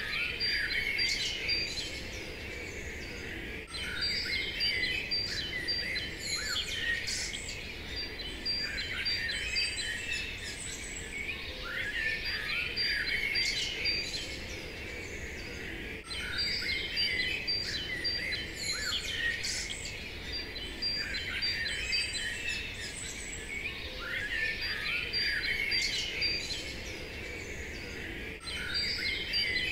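Many birds chirping and singing over a steady low background hiss, a birdsong ambience whose same stretch repeats about every 12 seconds.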